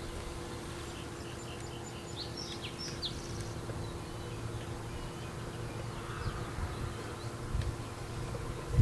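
Quiet outdoor background: a steady low hum with a few short bird chirps about two to three seconds in.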